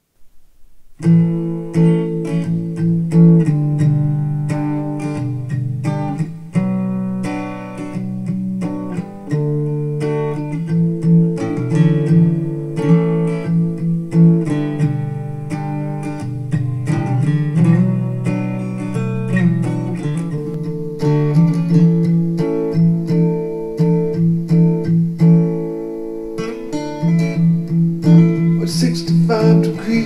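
Acoustic-guitar music, strummed with a low bass line, played back through KEF LS50 loudspeakers in a small room and picked up by a microphone at the listening position. It starts about a second in.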